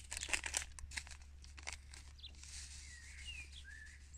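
Paper seed packet rustling and crinkling as seeds are handled, in several quick crisp bursts over the first second and a half. Then a bird chirps several times with short up-and-down calls.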